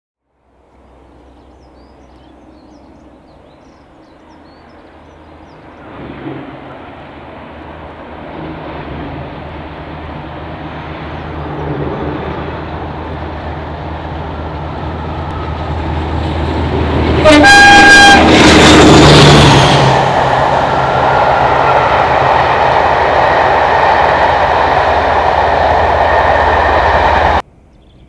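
Diesel locomotive approaching under power, its engine growing steadily louder, with a short horn blast about 17 seconds in as it passes at its loudest; the engine stays loud until the sound cuts off suddenly near the end.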